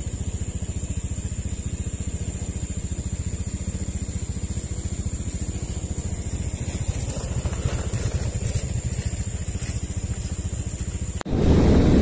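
Engine idling with a fast, even pulse, under a thin steady high whine. Near the end it cuts off abruptly to a louder rushing noise.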